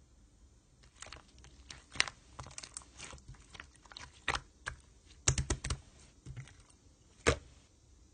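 Slime being pressed and poked by hand, making irregular sharp clicks and crackling pops as air pockets burst, with a few louder pops about two seconds in, past the middle, and near the end.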